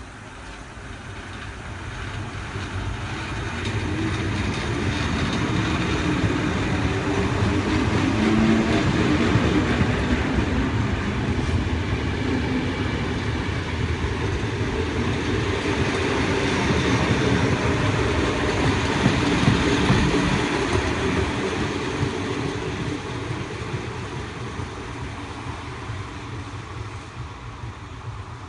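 FS ALe 801/940 electric multiple unit pulling away and accelerating past, its traction motors and wheels on the rails making a dense rumble. It builds over the first few seconds, stays loud for most of the time, then fades as the train draws away.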